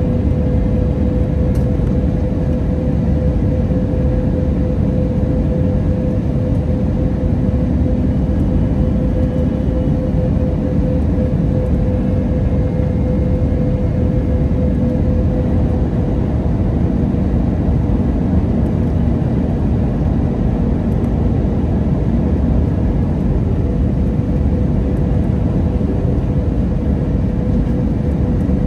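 Airbus A320neo cabin noise on descent: a loud, steady rush of engine and airflow noise with a steady hum-like tone running through it that weakens about halfway through.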